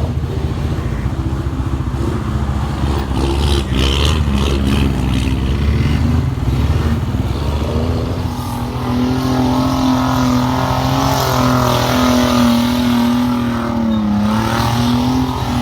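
Chevy Blazer's engine running hard while the truck spins donuts in a dirt and grass field. The revs climb about halfway through and are held high, dipping briefly near the end.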